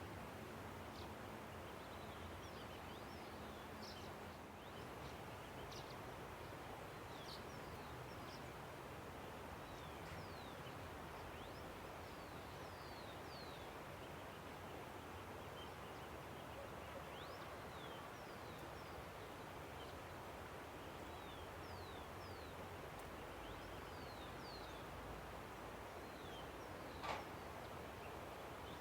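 A river rushing steadily, with many short, high bird chirps that slide down in pitch scattered throughout. Near the end comes one sharper, louder sound.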